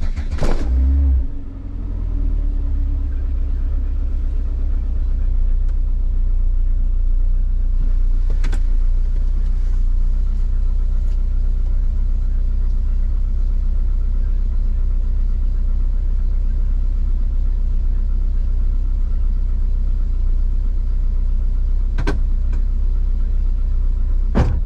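Volvo 480's engine running steadily at idle, a low steady rumble that swells louder in the first second or so, with a few faint clicks.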